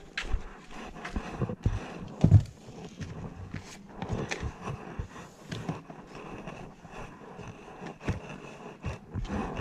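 Plastic cooler box being handled: scattered knocks and scrapes, with one loud thump about two seconds in.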